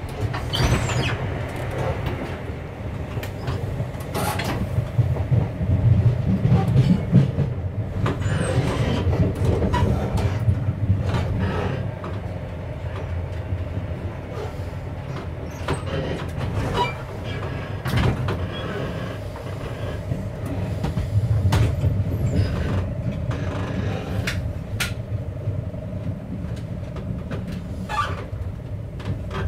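Inside a moving diesel passenger train: the steady rumble of wheels and running gear, with sharp clicks as the wheels cross rail joints and points. The rumble swells louder a few times.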